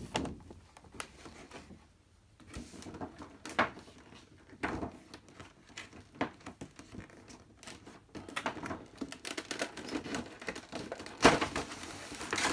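Cardboard figure packaging being handled and opened: rustling and scraping with scattered clicks and knocks, the loudest knock about eleven seconds in.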